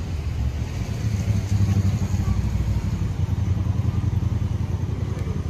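Road traffic on a city street: a steady low rumble of passing cars.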